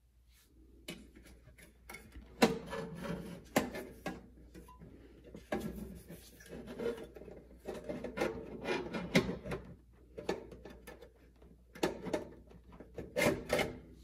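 Hands working wires and a plastic housing against a refrigerator's sheet-metal frame: irregular rubbing and rustling broken by sharp clicks and knocks. The loudest knock comes about two and a half seconds in, with further clusters near four seconds, near nine seconds and near the end.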